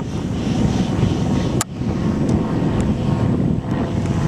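Strong wind buffeting the microphone: a continuous low rumble. One sharp click comes about a second and a half in.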